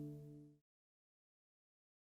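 The last held notes of the song fade out in the first half second, then complete silence.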